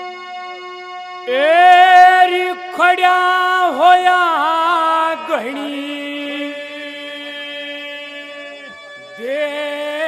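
Male singer singing a drawn-out Haryanvi ragni line into a microphone, long notes bending and wavering, over a steady instrumental drone. The voice drops out about halfway through, leaving the drone alone, then comes back near the end.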